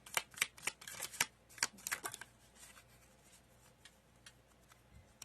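Tarot cards being shuffled by hand: a quick run of crisp snaps for about two seconds, then only faint ticks.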